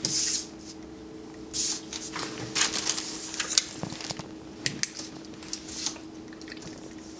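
Irregular rustling and sharp clicks of hands working at an office desk, with a few louder clicks in the middle, over a steady low hum.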